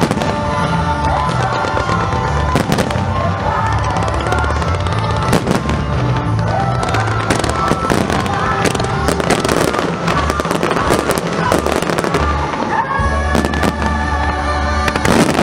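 Aerial fireworks bursting: a dense run of sharp bangs and crackles, thickest around the middle and again near the end, with music playing underneath.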